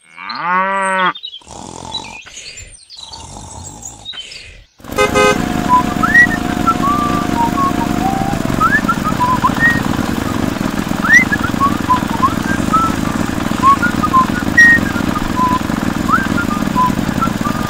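A cow moos once, then from about five seconds in a small tractor engine runs steadily, with birds chirping over it.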